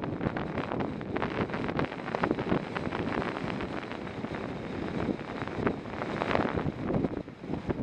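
Wind buffeting the microphone of a camera riding on a moving road bike, a steady rushing noise broken by frequent small knocks and rattles as the bike runs over the road surface.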